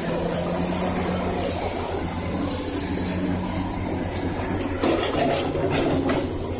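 Hydraulic excavator's diesel engine running steadily with a low, pulsing hum while it digs soil with a ripper, and a brief louder stretch about five seconds in.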